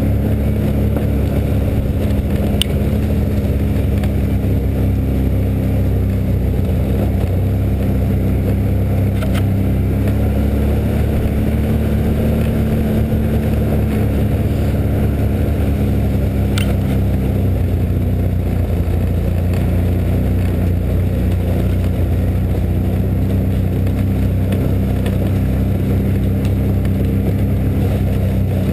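Can-Am Outlander XT ATV engine running steadily at trail speed under the rider, its pitch rising slightly for a few seconds midway. A few light clicks break through now and then.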